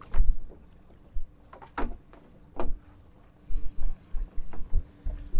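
Small boat on the open sea: irregular low knocks and short splashes of water against the hull, several in a quick cluster in the second half.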